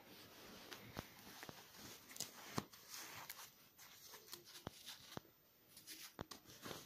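Faint rustling of a duvet and a dish sponge being handled as a kitten moves about on the bed, with several soft sharp clicks scattered through.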